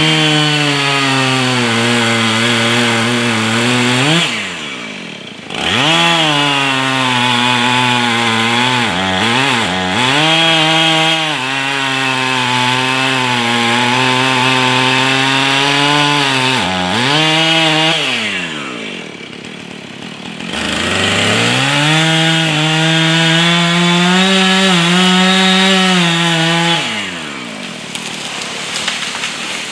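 Husqvarna 445 two-stroke chainsaw held at full throttle through long cuts in wood, its note dropping back toward idle four or five times between cuts and picking up again.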